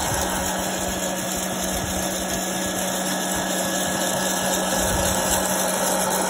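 Nostalgia hot-air popcorn popper running with coffee beans in its chamber: a steady rush of blown air over a constant low motor hum, early in the roast.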